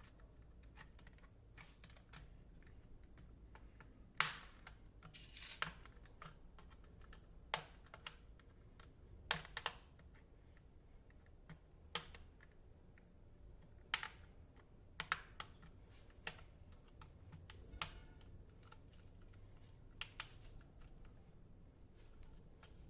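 Faint, irregular plastic clicks and snaps from the bottom cover of an HP 15-bs laptop being pried off, its retaining clips popping loose one by one, the loudest about four seconds in.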